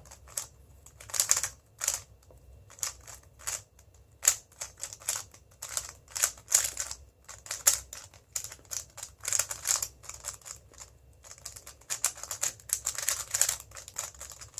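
Moyu WeiLong GTS2M 3x3 speedcube being turned fast during a timed solve: quick runs of light plastic clacking in bursts, with brief pauses between them.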